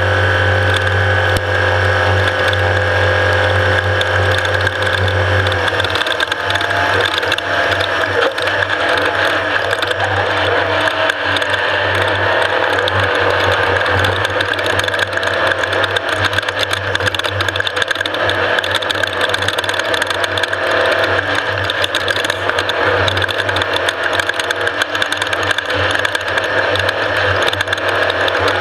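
Off-road race vehicle running over rough desert terrain: a dense, continuous mechanical rattle over the engine's drone. The engine note holds steady for the first several seconds, then wavers as the load changes.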